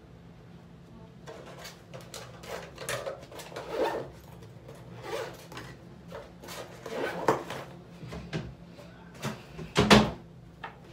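Irregular clicks, knocks and light rattles of small items being picked up and set down, with the loudest knock near the end, over a faint steady low hum.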